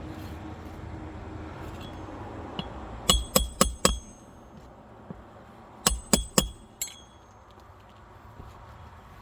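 Hammer driving roofing nails into shingles: two quick runs of four sharp, ringing metal blows, about three seconds apart.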